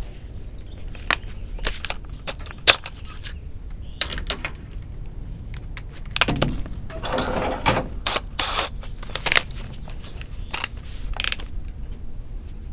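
Small metal objects being handled: scattered sharp clicks and rattles, with a longer scraping rustle about seven seconds in.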